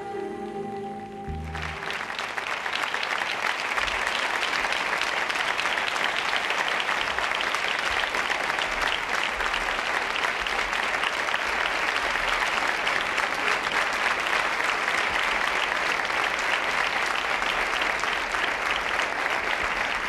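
The song's final held chord ends about a second and a half in. A theatre audience then applauds steadily at the end of the number.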